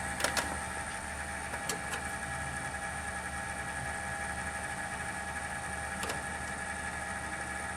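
Desktop PC running with a steady hum, a few held whining tones and rumbling, a vibration noise that the owner suspects comes from the liquid-cooling radiator and the fans mounted on it. A few light clicks, one near the start and one about six seconds in.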